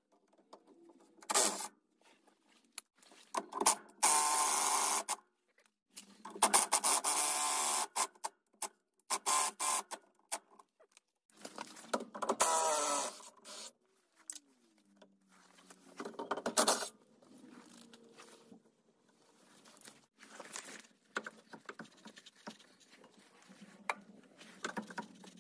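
Cordless impact wrench run in about six bursts of one to two seconds on a VW Beetle's shock absorber mounting bolts, with clicks and knocks of tool and metal between. The bolts are seized and do not come loose.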